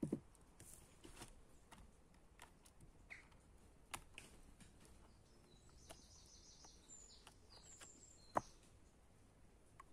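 Faint clicks and taps of a small plastic 1:28-scale RC car being handled, with a sharp click near the end. A small bird chirps in the background for about two seconds past the middle.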